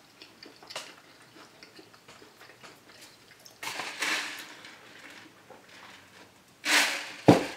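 Quiet eating sounds: light clicks of a utensil on a plate, with short hissy bursts about halfway and shortly before the end, and a sharp click just before the end.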